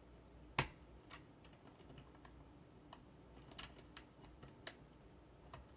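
Plastic LEGO pieces being handled and fitted together: one sharp click about half a second in, then scattered lighter clicks and taps.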